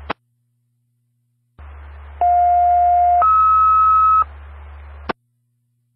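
Fire dispatch radio channel: a squelch click as a transmission drops. After a short silence the channel keys up with a low hum and sends a two-tone sequential paging alert, a steady lower tone for about a second and then a higher tone for about a second. The channel unkeys with another click.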